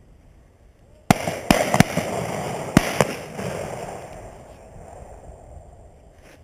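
Side-by-side shotgun fired: sharp loud bangs, the first about a second in and more over the next two seconds. They stand over a rush of noise that fades away over about three seconds.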